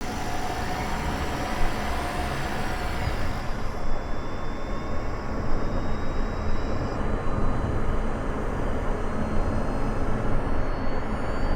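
Honda ZR-V's engine bay heard from a microphone inside it: steady mechanical running noise with a low rumble and thin high whines, one of which climbs slowly near the end. This is the compartment where the owner suspects an abnormal noise is coming from.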